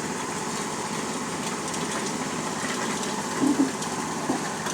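Concrete mixer running, a steady rushing noise.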